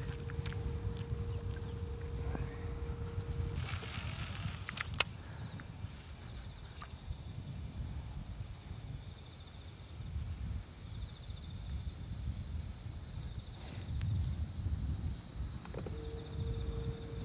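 A steady chorus of insects in the summer vegetation, a high buzz that grows louder about three and a half seconds in, over a low rumble. A faint steady hum is there at the start and again near the end, and a single click comes about five seconds in.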